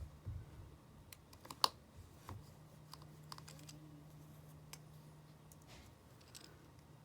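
Irregular small clicks and taps from handling iPhone parts and small tools on a work surface, with one sharper click about one and a half seconds in and a couple of soft thumps.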